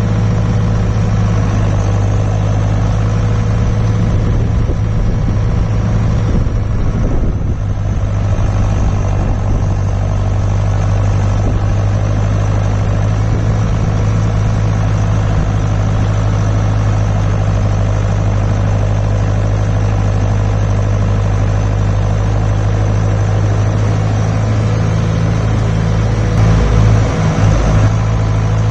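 John Deere 6400 tractor's four-cylinder turbo diesel running at a steady speed, with a few low thumps near the end.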